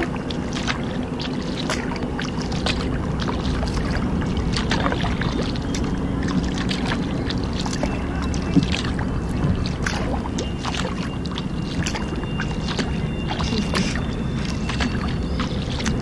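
Kayak paddling on a river: the paddle blades dip and pull with many small splashes and drips of water, over a steady low hum.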